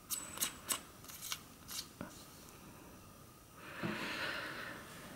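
A handful of faint, irregular clicks from the Meopta MeoStar R1 riflescope's capped elevation turret being turned by hand, each click a ¼-inch-per-100-yards step. Near the end comes a soft rustle of hands moving on the scope.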